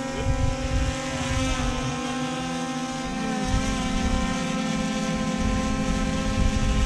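A motor running steadily with a constant hum of several tones, one of which shifts slightly about three seconds in, while wind buffets the microphone.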